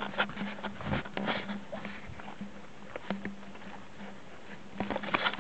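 Footsteps and rustling through forest undergrowth: irregular soft crunches and clicks, busiest about a second in and again near the end, over a steady low hum.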